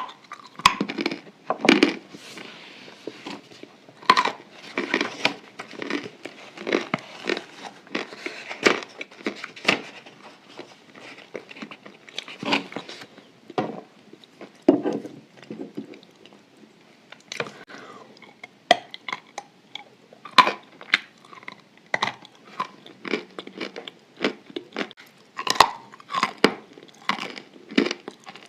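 Chalk coated in white clay paste being bitten and chewed close to the microphone: a long run of sharp, irregular crunches with wetter chewing between them.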